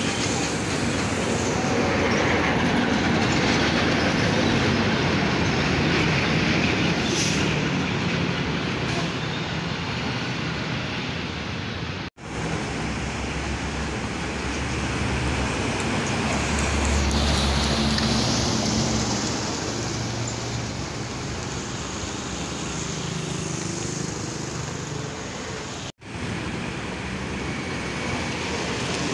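Busy road traffic: trucks and motorcycles passing close by, engines running over tyre noise, with a deep engine rumble strongest a little past the middle. The sound drops out for an instant twice.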